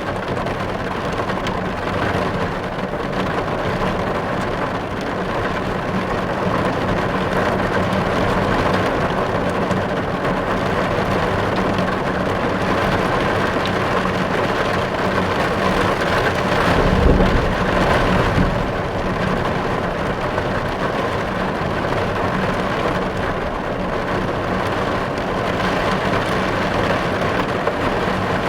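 Heavy rain falling on a car's windows, heard from inside the car: a steady, dense patter. About two-thirds of the way through comes a brief low rumble.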